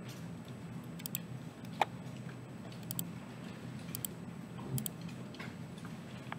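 Computer mouse button clicks, a few sharp clicks about once a second, several in quick pairs, over a low steady hum.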